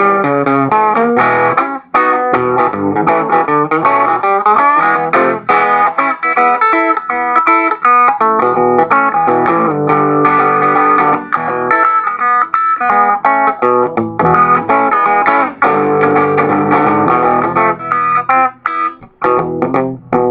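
Stratocaster-style electric guitar playing a fast boogie-blues tune, quick riffs and chords with a few brief breaks.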